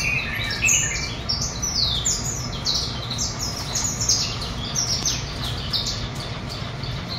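Several small aviary songbirds chirping and singing at once: a dense stream of short, high notes, many of them sweeping downward, several a second.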